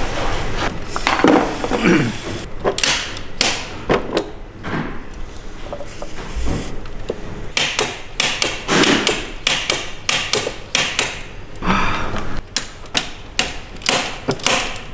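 Repeated sharp metallic knocks of a slide-hammer puller working a rust-seized diesel injector out of a BMW M57 six-cylinder diesel head, coming thick and fast in the second half.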